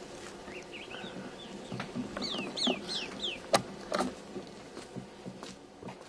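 Bird calling: a quick series of high chirps, the middle ones sliding down in pitch. A few sharp knocks sound alongside, the loudest just past the middle.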